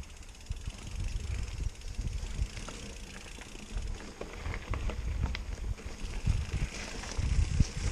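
Mountain bike riding over a dirt singletrack: uneven rumbling from bumps and wind on the microphone, with scattered sharp clicks and rattles from the bike.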